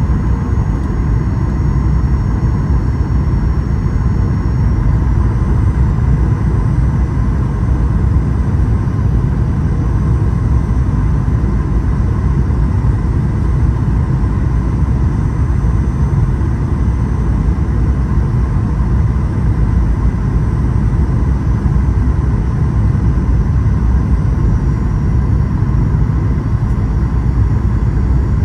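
Boeing 737-800 passenger-cabin noise: a steady, deep roar of engines and airflow with faint steady high tones over it.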